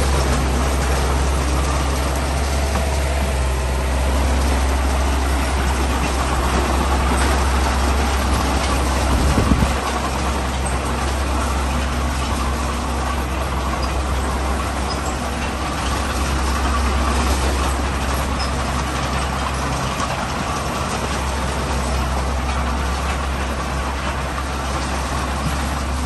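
Heavy diesel engine of earthmoving or haulage machinery running steadily, with a single short knock about nine seconds in.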